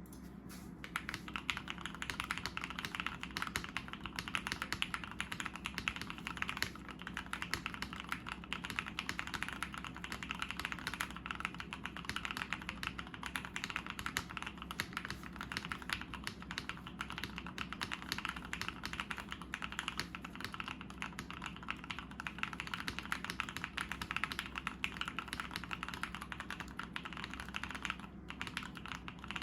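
Continuous fast typing on a custom 60% mechanical keyboard with lubed Gateron Yellow linear switches on an aluminium plate in a frosted acrylic case, dense keystroke clacks starting about a second in.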